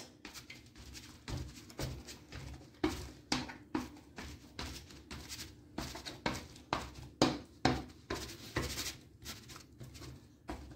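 A metal fork pricking a sheet of puff pastry in a parchment-lined baking tin, with quiet, irregular taps, roughly two a second, as the tines jab down through the dough.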